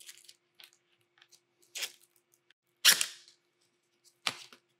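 Battery strap being pulled through slots in a carbon-fibre drone frame plate: short scraping and rustling bursts, three main ones, the loudest about three seconds in, with a few small ticks between them.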